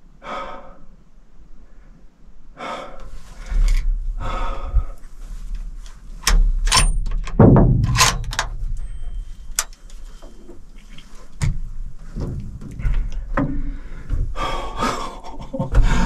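A man breathing heavily and gasping with excitement, mixed with sharp clicks and knocks from handling a rifle and shifting in a small enclosed blind, the clicks bunched in the middle.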